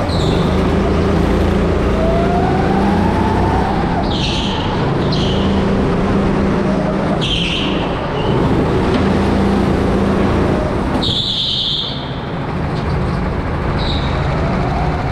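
Indoor rental kart heard from onboard, its motor running hard with rising pitch as it accelerates between corners. Short high tyre squeals come six times as it turns on the slick track surface.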